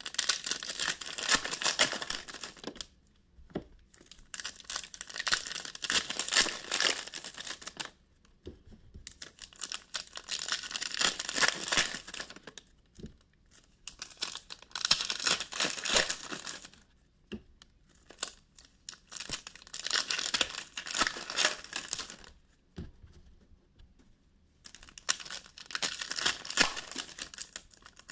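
Trading-card pack wrappers being torn open and crinkled, in six bursts of a few seconds each with short pauses between.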